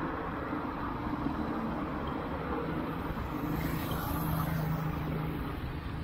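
Busy road traffic: motor vehicle engines running close by, a steady hum over road noise that grows a little louder about three to four seconds in.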